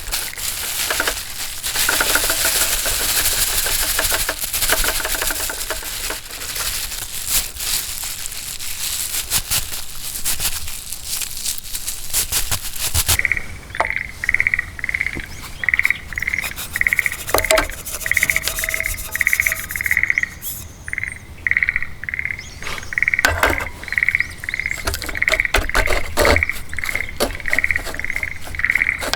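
Campfire crackling with a steady hiss, then, after a sudden change about halfway through, a regular series of short high chirps from an animal, about two or three a second, over scattered crackles.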